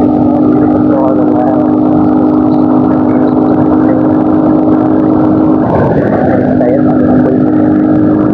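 Yamaha R15's single-cylinder engine running at a steady pace while riding. Its steady note breaks and shifts about five and a half seconds in, as with a change of throttle or gear.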